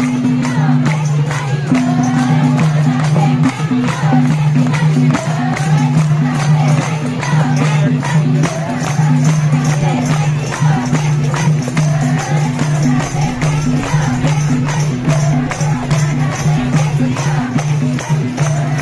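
Nepali Teej folk song music: singing over a steady, even beat, with the seated crowd clapping along.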